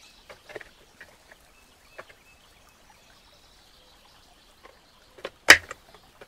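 Small laser-cut MDF pieces clicking and knocking against each other as they are pressed into slots of a miniature wooden cabinet by hand. There are a few light clicks in the first two seconds, and one sharper knock about five and a half seconds in.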